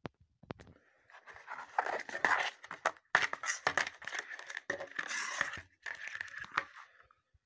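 Plastic Blu-ray case being handled and turned over on a tabletop: about six seconds of scraping and rustling, broken by a few sharp clicks.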